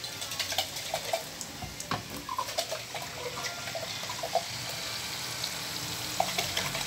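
Crab in a creamy butter sauce bubbling in a pot on the stove, with wet pops and blips over a steady simmering hiss. The popping thins out after about four seconds.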